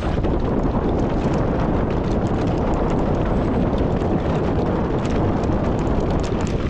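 Wind buffeting an action camera's microphone over the rumble of mountain-bike tyres on a rough dirt trail at speed, with a steady scatter of rattling clicks from the bike over rocks and roots.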